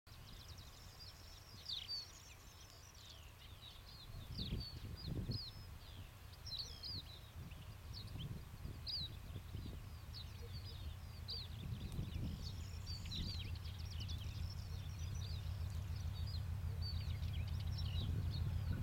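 Small birds chirping and singing throughout, over the low drone of an approaching diesel locomotive, a 3TE10M with 10D100 two-stroke opposed-piston engines, that grows steadily louder. A few gusts of low rumble come around five seconds in.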